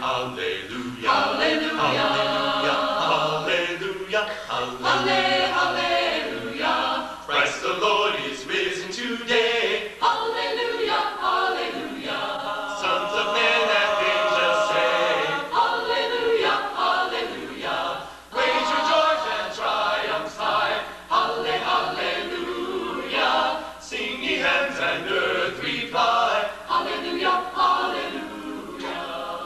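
A cappella choir singing sustained, overlapping chords in a reverberant hall.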